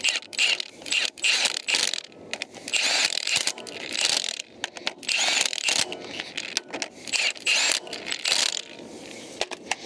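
Cordless Milwaukee Fuel impact wrench running the 19 mm axle shaft flange bolts down, in about ten short rattling bursts with brief pauses between them as it moves from bolt to bolt.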